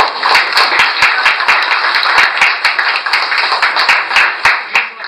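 Small audience applauding, with one pair of hands clapping close and louder than the rest; the applause stops near the end.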